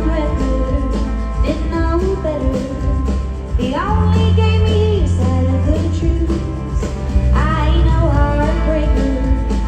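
Live country band playing, with a woman singing over a heavy bass line. Her sung phrases come in about a third of the way through and again past the two-thirds mark.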